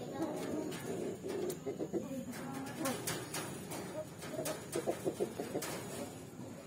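Birds giving low, repeated cooing and clucking calls, with a few sharp clicks scattered through.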